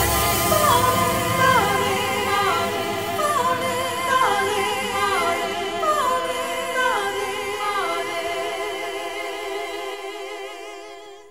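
The closing bars of a song: layered singing voices holding chords with a short falling phrase repeating about once a second, fading out near the end.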